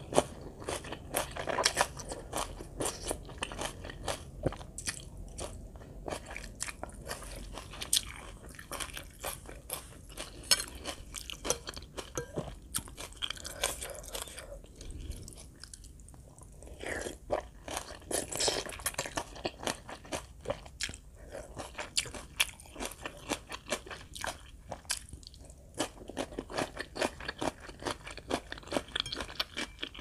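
Close-up eating sounds: a person slurping and chewing khanom jeen rice noodles with fresh greens, with many irregular crunching and wet mouth clicks.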